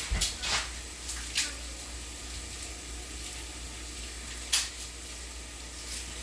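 Food sizzling in a frying pan, a steady hiss, with a few sharp kitchen knocks, the loudest about four and a half seconds in.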